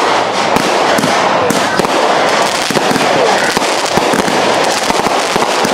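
Aerial fireworks going off: a dense run of bangs and crackling pops close together, with no break.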